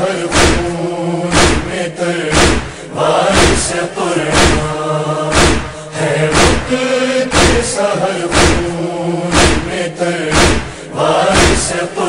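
Voices chanting a held lament refrain between verses of an Urdu noha, over a steady thumping beat about once a second in the style of matam chest-beating.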